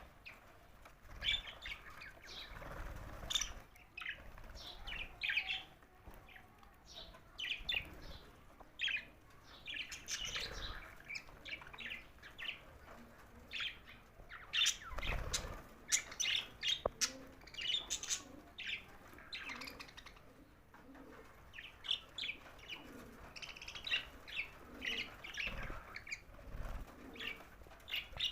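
Budgerigars chirping and chattering in quick, dense short calls, with a few dull low thumps among them.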